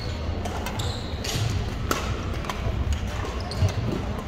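Badminton rally: a few sharp racket strikes on the shuttlecock, the loudest about three and a half seconds in, with short sneaker squeaks and footfalls on the gym floor over a background murmur of voices in the hall.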